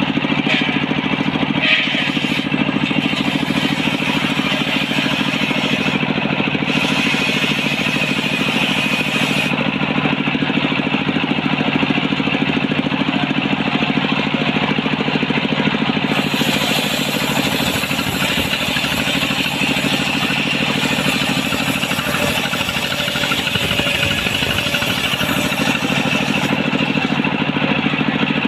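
Stationary engine running steadily, belt-driving a circular saw as planks of coconut wood are ripped. The saw's hissing cutting noise rises and falls over the engine's even beat.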